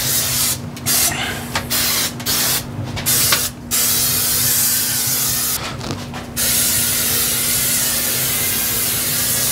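Aerosol can of vegetable cooking oil spray hissing in several short bursts, then one long steady spray from about six seconds in, as the inside of an offset smoker's steel cooking chamber is coated to season it.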